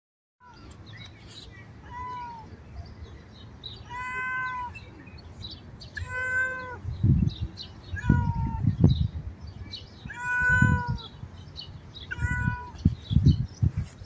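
Tabby-and-white domestic cat meowing repeatedly, about seven calls roughly every two seconds, each dipping slightly in pitch at the end. Low thuds come in among the calls in the second half.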